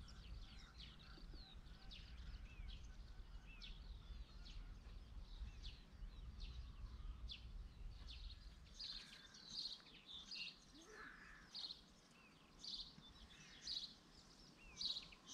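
Faint birdsong outdoors: a busy, continuous run of short high chirps and trills. Underneath, a low rumble that dies away about nine seconds in.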